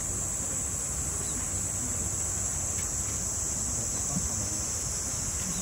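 Steady, unbroken high buzzing of a summer cicada chorus over the continuous rush of a small waterfall pouring into a pool.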